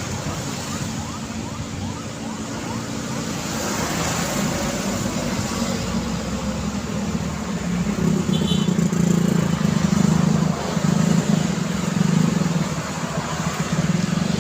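Busy city street traffic: a steady wash of passing cars and motorbikes. About eight seconds in, a deep engine drone comes in close and gets louder.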